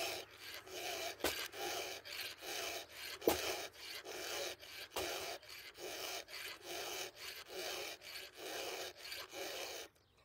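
A file being drawn across the cutters of a Husqvarna 572 XP's saw chain, about two scraping strokes a second, with a few sharp metallic clicks among them. The filing stops shortly before the end.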